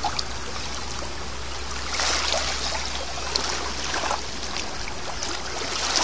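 Small waves lapping and washing over shoreline rocks, with soft swells about two and four seconds in, over a steady low rumble.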